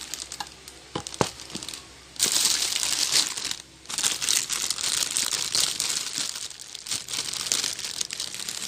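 Gift packaging being handled and crinkled as the next item is unwrapped. A couple of sharp clicks come about a second in, then steady crinkling from about two seconds in, broken by a short pause.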